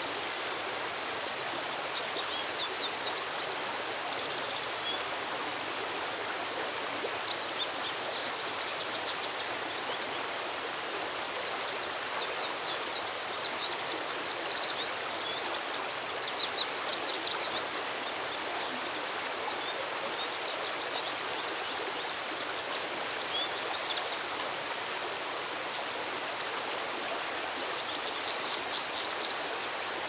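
Rushing mountain stream pouring over rocks, a steady water noise, with a steady high-pitched whine above it and small birds chirping in short bursts now and then.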